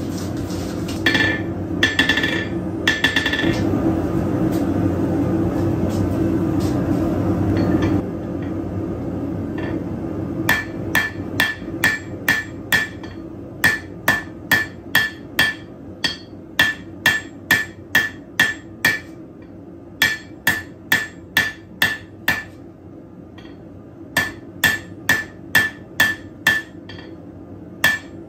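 Hand hammer striking glowing steel on an anvil to draw it out: about two blows a second in runs of four to six with short pauses, each blow with a short metallic ring. Before the hammering, a steady rushing noise with three sharp metallic clicks stops about eight seconds in.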